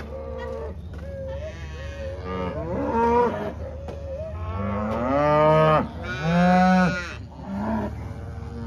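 Cattle mooing: a string of overlapping calls, the two longest and loudest a little past the middle.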